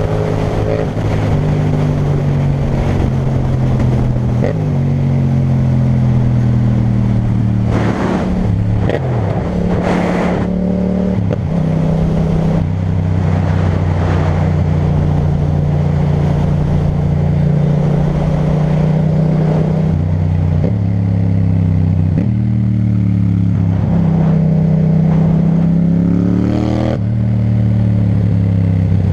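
Yamaha MT-07 parallel-twin engine through an Akrapovic titanium exhaust while riding. The engine note rises and falls with throttle and gear changes, and holds steady for a stretch in the middle.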